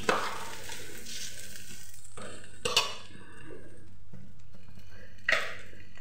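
Metal spoon stirring rice in a stainless-steel pot over the heat, with a faint sizzle that fades about two seconds in. Three sharp knocks of utensil against pot or container: at the start, a little under halfway, and near the end.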